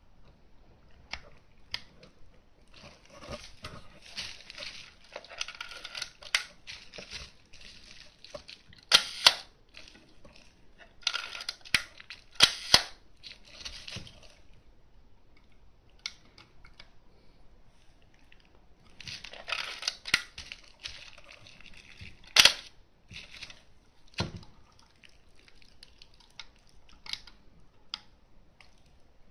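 Canon VI L rangefinder camera being worked by hand: stretches of rustling, ratchety handling noise and several sharp shutter clicks, the loudest coming in pairs about a third of a second apart.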